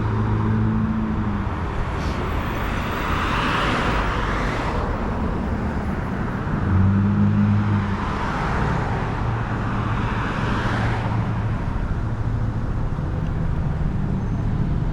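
Wind rumbling on a GoPro's built-in mic during an electric scooter ride, with a low steady hum. Road traffic swells past twice.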